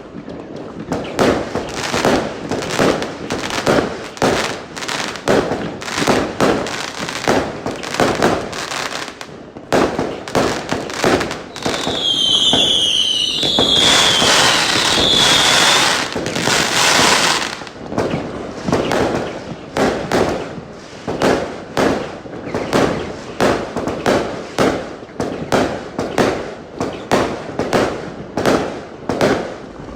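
Fireworks going off in quick succession, a dense run of bangs and crackles several a second. About twelve seconds in come a few short whistles falling in pitch, followed by a few seconds of thick, continuous crackling.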